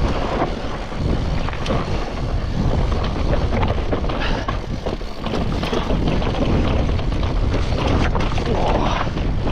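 Mountain bike riding down a rough trail: wind rushing over the microphone over the steady noise of tyres on dirt and rock, with frequent clicks and knocks from the bike rattling over the bumps.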